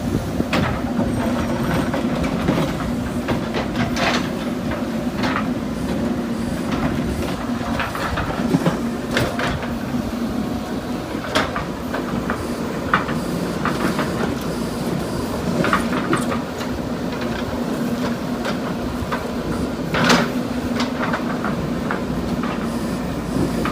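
JCB backhoe loader's diesel engine running steadily while it digs, with sharp metal clanks from the bucket and linkage now and then, the loudest about twenty seconds in.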